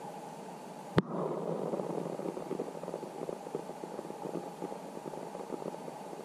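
Muffled underwater river ambience picked up by a submerged camera: a steady low rush of water with a sharp knock about a second in, then a denser crackle of small ticks.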